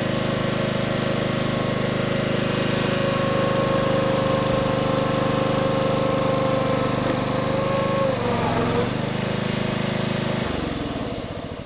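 An engine running steadily at an even pitch; the pitch wavers about eight seconds in, and the sound drops away over the last second.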